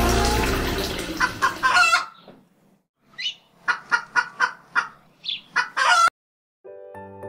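Chicken clucking: a quick run of short, sharp calls, starting under the fading tail of music and running water and carrying on alone for a few seconds. Soft music begins near the end.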